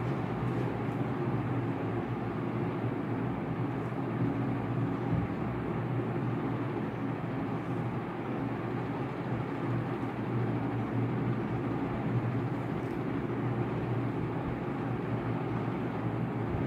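Steady background hum and rumble, even throughout with no distinct events.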